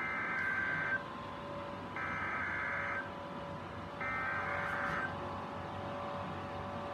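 NOAA Weather Radio SAME/EAS digital header: three buzzing data bursts of about one second each, a second apart, encoding a Required Weekly Test. After the third burst only a faint radio hiss remains.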